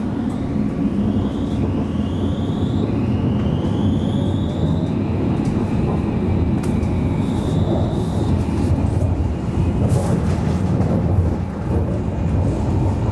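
Alstom Citadis tram under way: the electric traction drive whines in several rising steps as the tram picks up speed, then holds steady over a continuous rumble of wheels on rail. A brief sharp click comes near the end.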